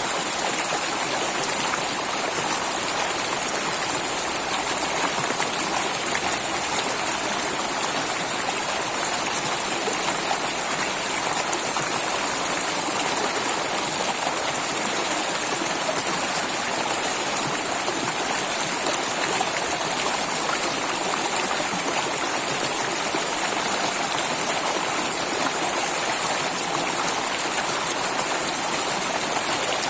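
Flowing water running steadily, an even rush with no breaks or changes.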